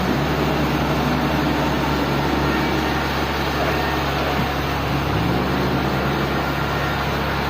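Sawmill machinery running: a steady engine hum under a broad hiss, its pitch rising briefly at the start and again about five seconds in.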